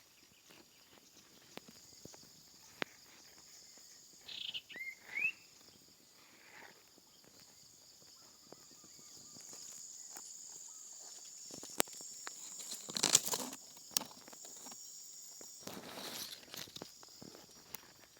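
A steady, high-pitched insect drone, with a few short rising bird chirps about four to five seconds in. Rustling noises come twice later on, the first a little past halfway and the second near the end.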